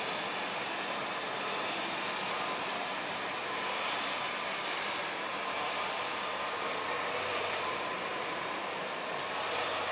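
The 4.3 L V6 of a 2000 Chevrolet S10 pickup running steadily at idle, with a brief hiss about five seconds in.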